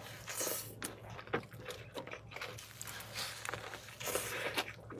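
A person chewing and biting into food close to the microphone, with irregular crisp crunches and wet mouth sounds.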